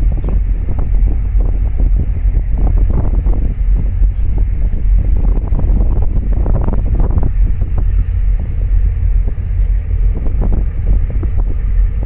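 Wind buffeting the microphone: a loud low rumble that surges unevenly in gusts.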